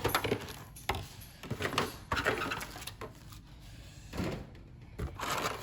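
Boxes and packaging being moved and cleared away by hand: irregular rustling, sliding and a few knocks, with a quieter spell about halfway through.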